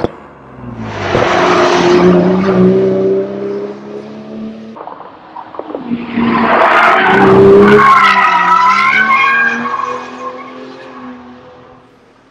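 2020 Toyota Supra under hard acceleration, in two pulls: the first about a second in, and a second, louder one about six seconds in with a high whine over the exhaust note, fading away near the end.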